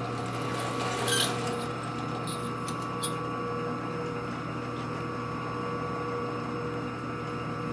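Steady machine hum, with a short metallic clatter about a second in and a few light clicks after it, as a metal lathe's four-jaw chuck and workpiece are handled.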